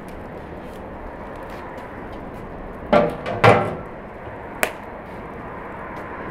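Aluminium lid put onto a large aluminium stockpot: two ringing metallic clanks about half a second apart, then a single sharp click a second later.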